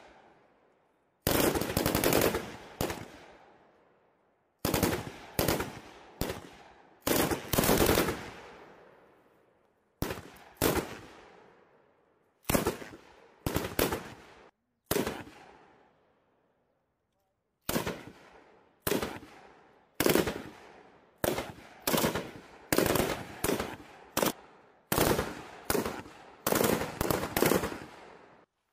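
M240B 7.62 mm machine guns firing short bursts of a few rounds each, again and again with brief pauses between, each burst trailing off in an echo. The bursts come closer together in the last ten seconds.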